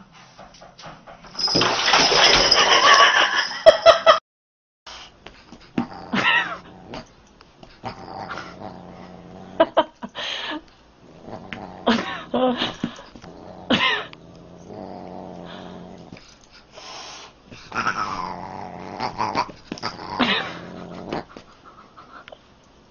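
Cats yowling and meowing, with dog sounds mixed in, across a run of separate short clips. The loudest part is a harsh, noisy stretch about two seconds in; after a brief gap come short calls that glide up and down in pitch.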